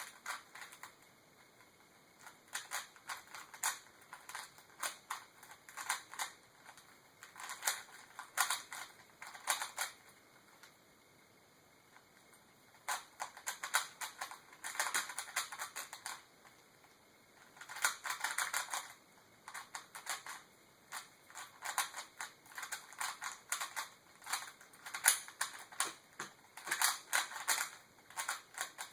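3x3 Rubik's Cube being turned quickly by hand during a timed solve: bursts of rapid plastic clicks as the layers snap round, broken by short pauses.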